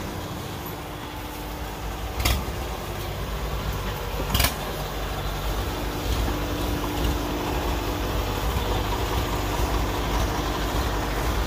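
Kubota DC-105X combine harvester's diesel engine running steadily as the tracked machine drives off a boat and up the bank, with two sharp knocks about two and four seconds in.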